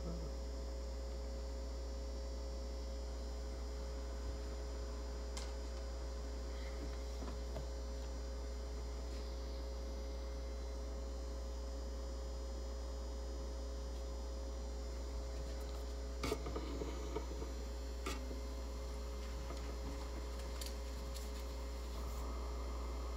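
Steady low electrical mains hum. A few faint clicks and rustles come about 16 to 18 seconds in.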